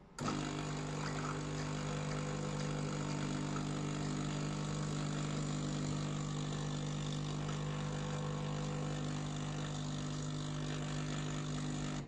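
De'Longhi Dinamica bean-to-cup coffee machine's pump running steadily as it brews espresso through the coffee spouts, a constant mechanical hum that starts just after the beginning and cuts off at the end.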